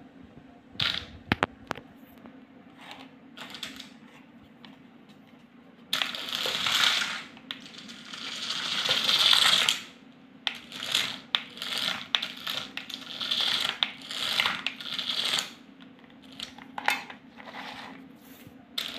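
Toy RC car's small geared DC motors running in short raspy bursts as the remote's buttons are pressed, driving the car back and forth across a wooden floor. A few sharp clicks come about a second in.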